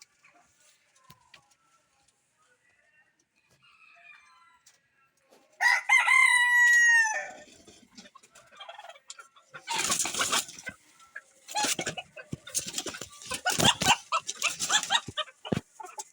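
A rooster crows once, about six seconds in, a single drawn-out call that falls at the end. From about ten seconds in come clucking and several short noisy bursts.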